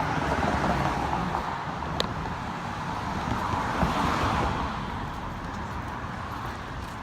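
Steady road traffic noise, swelling as a vehicle passes near the middle, with a single sharp click about two seconds in.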